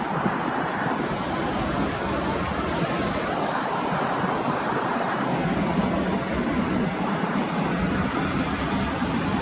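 MiG-29 jet engines roaring: a steady, loud rushing noise with no clear pitch, growing a little louder near the end.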